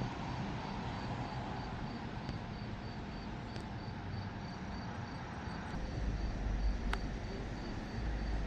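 Insects chirping in a steady, high, even pulse about three times a second. A low rumble comes in about six seconds in, with a single sharp click near seven seconds.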